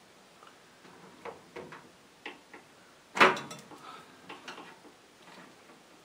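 Handling noises from a microwave oven's power cord and plug: a scatter of light clicks and taps, with one much louder knock about three seconds in.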